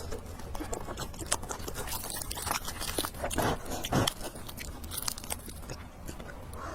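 Close-miked chewing of fried noodles and pork: a continuous run of wet mouth clicks and smacks, with two louder mouthfuls about three and a half and four seconds in.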